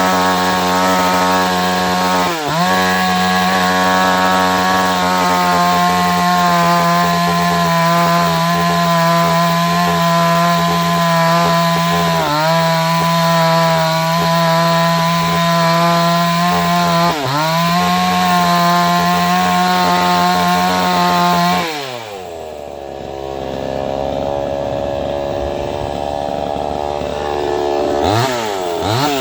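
Chainsaw engine running at high revs, its pitch sagging briefly three times. About two-thirds of the way through the throttle is released and it drops to a lower, quieter idle, then it revs back up near the end.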